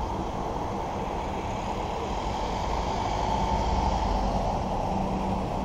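Steady low rumble of wind on the camera microphone mixed with road traffic noise.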